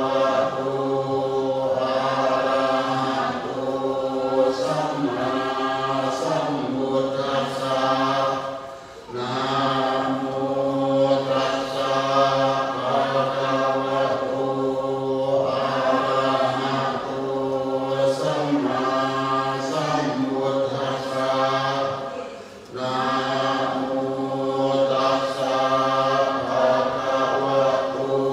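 Group of voices chanting a Thai Buddhist ritual chant in unison on a near-steady pitch, with short breaks for breath about 9 and 22 seconds in.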